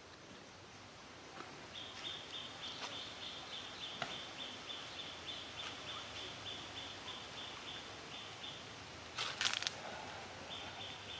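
Outdoor ambience with a high-pitched chirping call repeating about four times a second, which stops for a couple of seconds near the end and then resumes. About nine seconds in, a short loud burst of rustling crackle.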